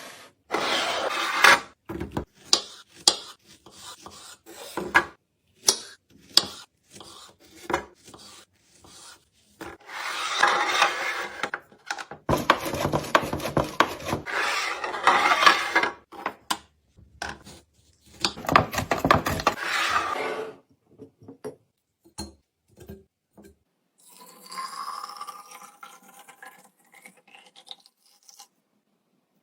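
Food packaging and plastic containers handled during a fridge restock: bursts of rustling and scraping, with many sharp taps and clinks. Near the end there is a fainter passage with a rising tone.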